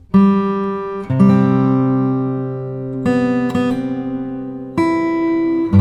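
Background music: acoustic guitar chords struck one at a time about every second or two, each left to ring and fade.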